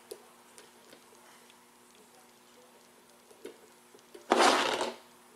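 Faint handling clicks as fly-tying thread is worked at the head of the fly, then a loud hissing rustle lasting under a second about four seconds in.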